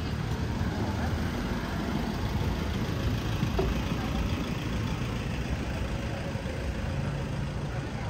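Busy beachfront ambience: a steady low rumble of motor noise and wind, with faint voices of people nearby.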